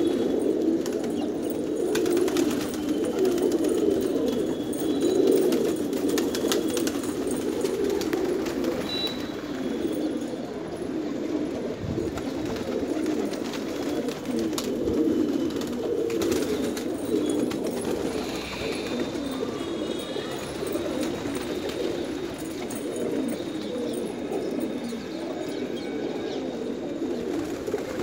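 A flock of domestic pigeons cooing all together, a steady overlapping low cooing with no pauses, with a few short high chirps over it.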